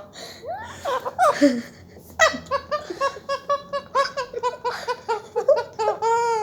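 Indian ringneck parrot mimicking human laughter: a long run of quick, even 'ha-ha' notes, about four or five a second, after a few gliding calls, ending in one longer call.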